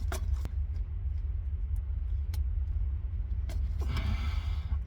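Oil filter wrench clicking against a tight oil filter as it is worked loose, with a short scrape about four seconds in, over a steady low rumble.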